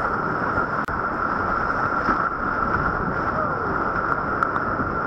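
Whitewater rapids rushing around a kayak, with water splashing over the camera and wind on the microphone. The sound cuts out for an instant about a second in.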